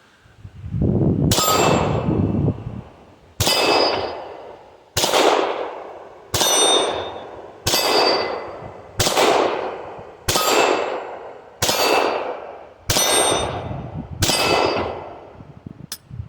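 Ten shots from a Glock 20C 10mm pistol at a steady pace, about one every second and a half. Each is followed by the clang of a steel target being hit, ringing and dying away over about a second.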